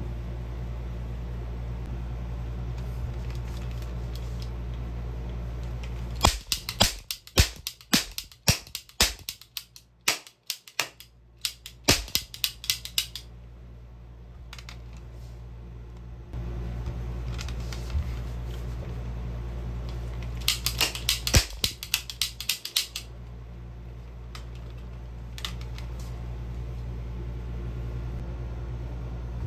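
Steady low hum, broken by two runs of rapid sharp clicks or snaps: a long run starting about six seconds in, and a shorter one about twenty seconds in.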